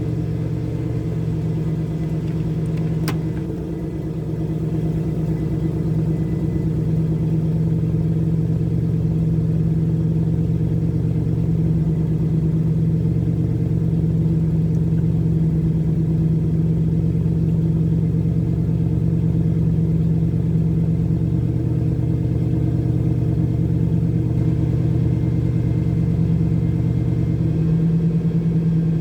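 Chevrolet Camaro IROC-Z V8 idling steadily after a hard start, with one sharp click about three seconds in.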